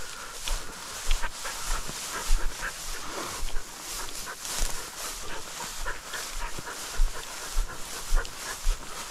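Footsteps tramping through tall grass, about two a second, with the grass swishing, and a Munsterlander panting close by as it walks at heel.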